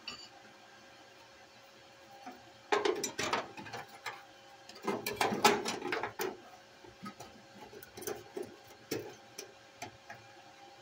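Sheet-metal patch panel being handled and pressed into place by hand against a car's rear floor: clusters of metal clicks, scrapes and rattles about three seconds in and again around five to six seconds, then scattered lighter clicks, over a faint steady hum.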